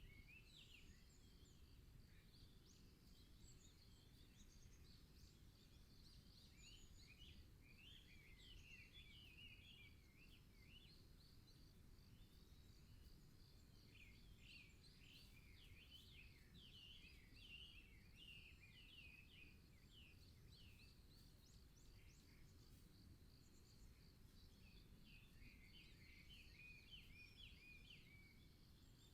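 Faint forest birdsong: small birds giving quick runs of chirping notes in several bouts, busiest around the middle, over a steady faint high hiss and a low rumble.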